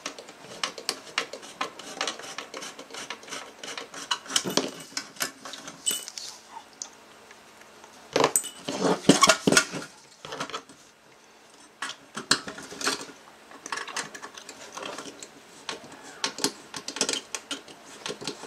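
Small metal tools clicking and scraping: a 5 mm wrench works an aluminium lock nut with a nylon insert while a small screwdriver holds the screw in its slot. The ticks and light clinks of tool on nut and metal chassis come in irregular bursts, thickest about halfway through.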